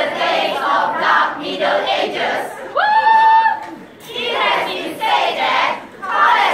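A large group of voices speaking in unison in a choral speaking recitation, in short rhythmic phrases. About three seconds in, a single high note slides up and holds briefly.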